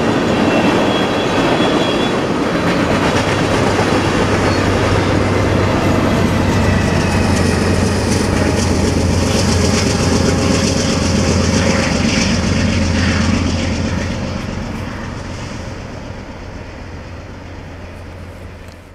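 Empty crude-oil tank cars rolling past with a clickety-clack of wheels over rail joints, then the rear distributed-power unit, a GE C44-9W diesel locomotive, passes with its engine running in a steady low hum. The sound fades steadily over the last five seconds as the train draws away.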